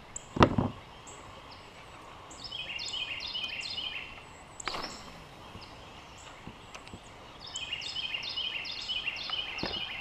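Creekside ambience in which a bird sings three spells of quick, repeated falling notes. A single sharp knock comes about half a second in, and a falling swish near the middle.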